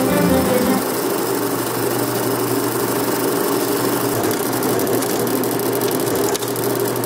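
16mm film projector running steadily, its motor giving a low hum, with a rapid fine clicking joining in about four seconds in. Music stops within the first second.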